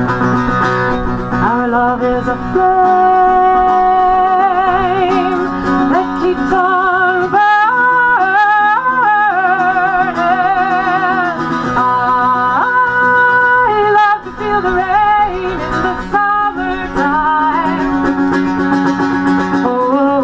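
A woman singing with a strong vibrato, accompanying herself on a mandolin.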